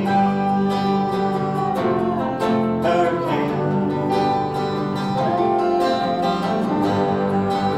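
Country music instrumental break between verses: guitars and other plucked strings playing on without lyrics.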